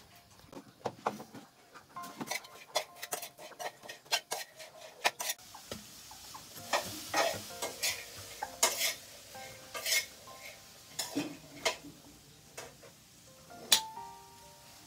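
Kitchenware handled: many sharp clinks, knocks and scrapes of utensils against dishes or a pot, with a steady sizzling hiss joining about a third of the way in.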